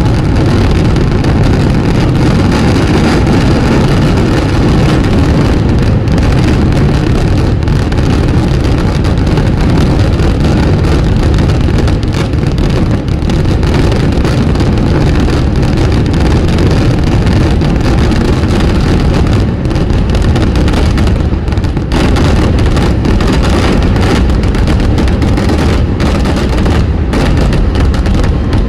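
Kerala temple fireworks barrage (vedikettu): crackers going off so close together that they merge into one continuous loud roar. Separate bangs stand out more in the last third.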